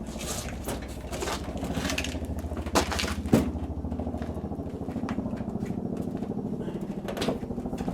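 A motor running steadily with a fast, even pulse, and a couple of sharp clicks and scrapes about three seconds in.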